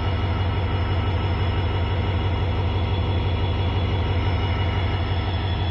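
Diesel locomotive engine running steadily at idle: a loud, even low throb with a thin high whine over it.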